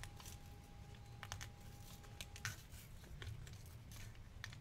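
Baseball card pack wrapper crinkling and tearing as hands peel it open, in faint scattered crackles.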